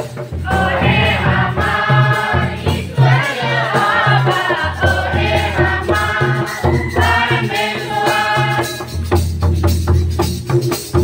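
A group singing a Christian hymn together, accompanied by a barrel hand drum beating steadily and quick ticking percussion. The singing stops about two seconds before the end while the drum goes on.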